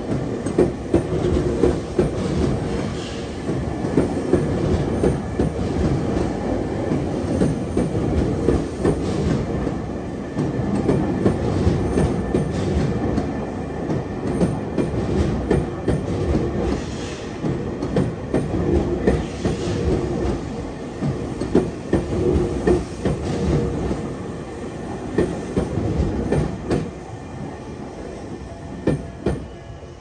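Electric commuter train running past at close range, its wheels clattering over rail joints and points with some wheel squeal. The sound fades near the end as the train moves away.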